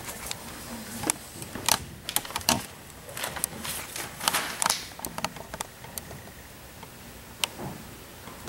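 Scattered short clicks, taps and light rustling from objects being handled: a candle in its holder and a long utility lighter. The clicks come thickly in the first five seconds, with one more sharp click about seven seconds in.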